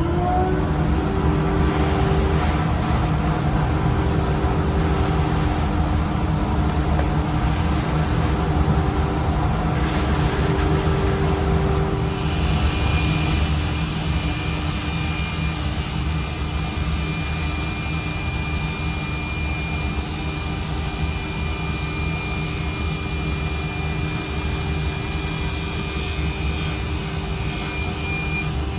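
Workshop machines running steadily: a motor that spun up just before holds an even pitch, and about halfway a second, higher steady whine joins in. This fits the SIP table saw and the vacuum on its dust collection running for a full test cut.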